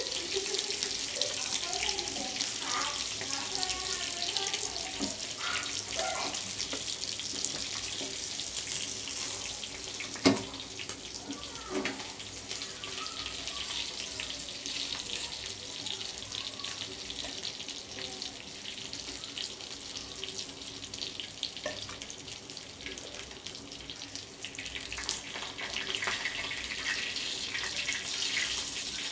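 Fish slices shallow-frying in hot oil on a flat iron tawa, a steady sizzle full of fine crackles. A metal spatula knocks sharply against the pan about ten seconds in, and again more softly two seconds later.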